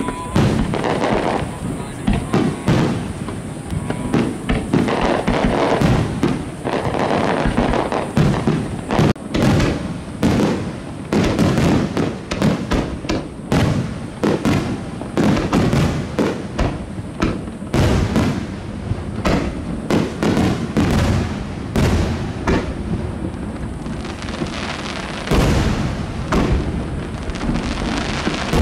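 Aerial fireworks shells bursting in a fast, dense barrage of sharp bangs and crackling, one after another with only short gaps, and a heavier low boom near the end.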